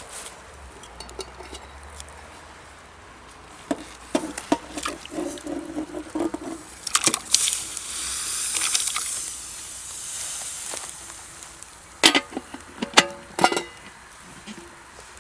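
Camp cooking: metal utensils knocking and clinking against cookware, some knocks ringing briefly, with a sizzling hiss in the middle that swells and fades over about three seconds.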